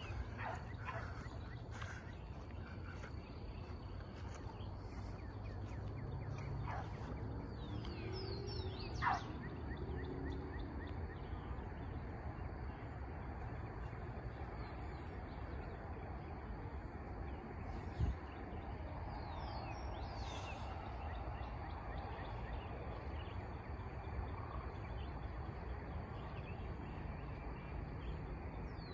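Outdoor ambience: a steady low background rumble with scattered short, falling bird chirps, and one sharp click about eighteen seconds in.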